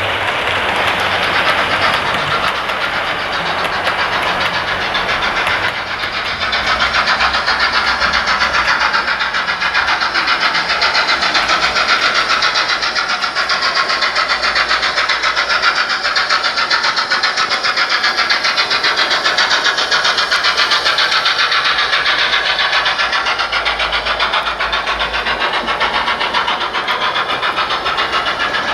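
Sound decoder's recorded steam locomotive sound of a GWR 'King' 4-6-0, played through a OO-gauge model's small onboard speaker: rapid, steady exhaust beats of a locomotive running, louder from about six seconds in.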